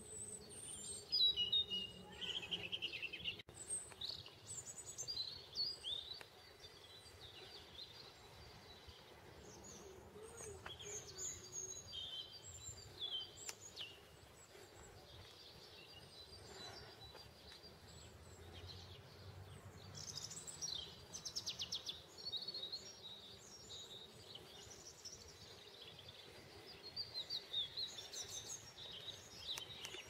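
Small songbirds chirping and singing, with short high whistled notes throughout and fast trills about two-thirds of the way in and again near the end, over faint steady background noise.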